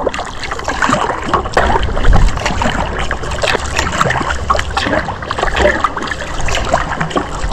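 Kayak paddle strokes: the blades dipping and splashing, with water trickling off them between strokes.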